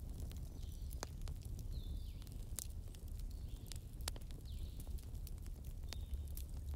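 Wood fire burning, with sharp crackles and pops at irregular intervals over a steady low rumble.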